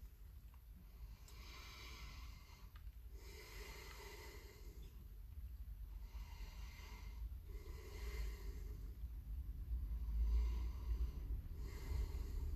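A man's heavy breathing close to the microphone: six long, hissing breaths in and out, about one every two seconds. A low rumble underneath grows louder toward the end.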